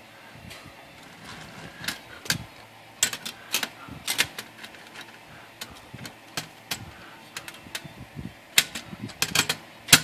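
Irregular sharp clicks and clacks of metal parts on a Smith Corona electric typewriter's carriage being handled and fitted back together after its paper-pan brackets were bent to raise the rear feed rollers. The loudest clacks come near the end.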